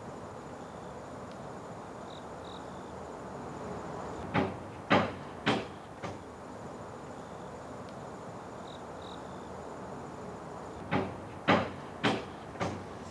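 Sharp knocks, about two a second, in two short runs of three or four, over a steady hiss with faint high chirps.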